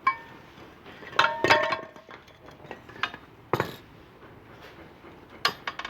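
Metal tools and parts clinking and knocking against each other. There is a sharp knock at the start, a cluster of ringing clinks a little over a second in, single knocks at about three and three and a half seconds, and a couple more near the end.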